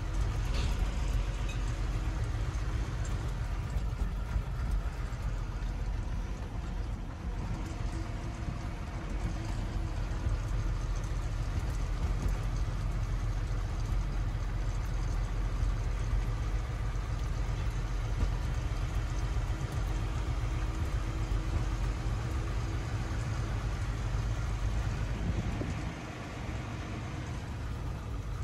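Diesel goods truck running along a road, heard from inside the cab: a steady low engine rumble with road and cab noise. It eases off briefly near the end.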